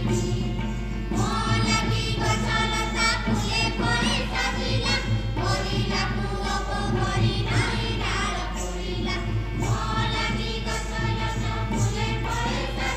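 A group of voices singing together in a slow, chant-like song with long held notes, over a steady low hum.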